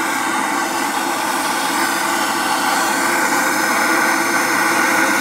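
Gas torch running steadily with a hissing rush, preheating the gear set of a BMW E36 differential before it is welded.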